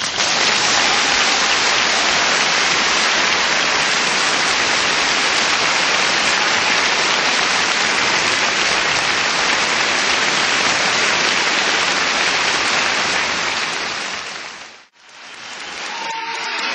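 Audience applauding in a dense, steady ovation that starts suddenly as the poem ends. It fades out about fifteen seconds in, then swells back more softly.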